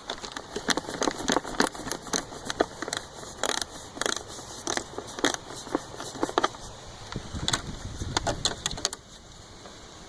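Irregular clicking and knocking of a wrench working loose the 10 mm bolt on a car's plastic air filter housing. A duller low rumble comes near the end.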